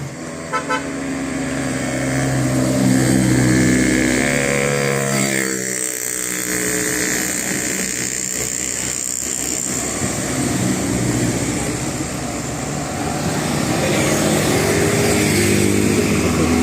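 Busy road traffic with tour buses passing and their engines running. A bus's multi-tone 'telolet' horn sounds in held notes during the first several seconds and again near the end.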